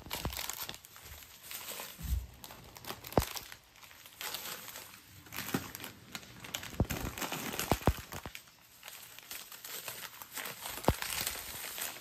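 Thin red plastic carrier bag rustling and crinkling as wrapped pastries are picked up and dropped into it, with a few sharp taps along the way.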